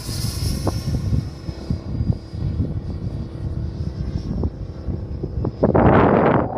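Model airplane's motor and propeller droning steadily, with a high whine that falls slightly in pitch, under heavy wind buffeting on the microphone; a strong gust hits near the end.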